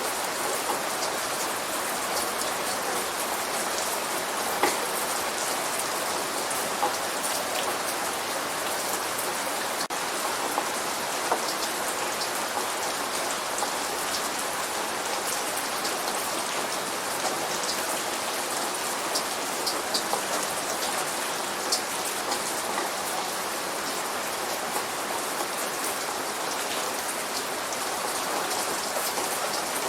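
Steady light rain falling on a surface, with individual drops now and then making sharp ticks above the even hiss. No thunder is heard.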